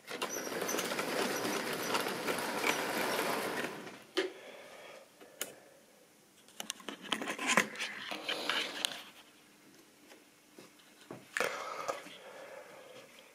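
Model railway train running along the track close by, a steady whirring clatter for about four seconds that then dies away. After it come scattered clicks and knocks from handling as the camera is moved.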